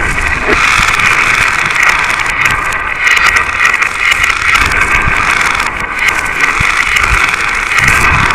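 Many glass marbles rolling and clattering along a marble run track, a steady dense rattle with occasional low knocks.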